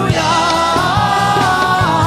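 Live gospel praise and worship music: a lead voice holds a long sung note over a band with steady drum beats.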